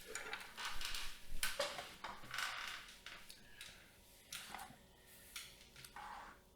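Camera gear being handled and fitted together: a run of short rustling scrapes and small clicks, busiest in the first two and a half seconds, then a few separate scrapes.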